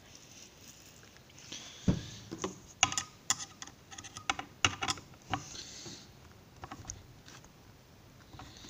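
Brake cleaner sprayed from an aerosol can in short hissing bursts, to dissolve the glue between an ECU's lid and its aluminium case. Many sharp clicks and knocks in between, the loudest in the middle.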